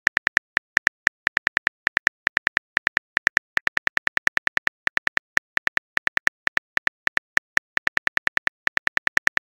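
Phone keyboard key-click sound effect: a rapid, even run of short clicks, about seven a second, as a text message is typed out.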